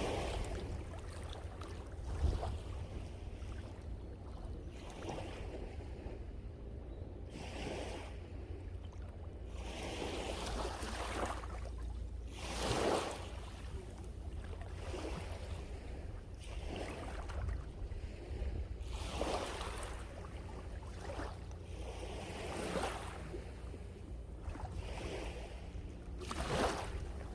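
Sea waves breaking and washing ashore in repeated rushing surges, the largest about halfway through. A steady low wind rumble on the microphone runs beneath them.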